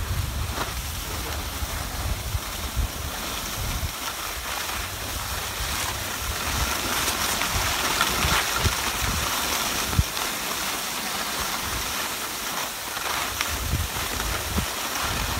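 Skis sliding over packed, groomed snow with a steady scraping hiss, while wind buffets the microphone of the moving skier in low gusts at the start and near the end, along with a few brief knocks.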